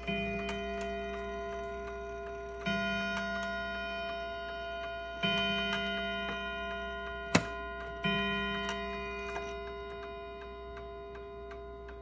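Sessions Westminster #27 mantel clock striking the hour on its gong at twelve: four strokes about 2.7 seconds apart, each ringing on and dying away slowly, with the movement ticking steadily underneath. A single sharp click comes about seven seconds in.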